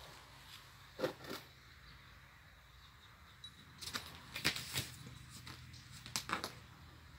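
Kittens' claws scratching and scuffling against a fabric-covered sofa as they play, in short bursts of rustling clicks: one about a second in, a longer flurry around four to five seconds in, and another just after six seconds.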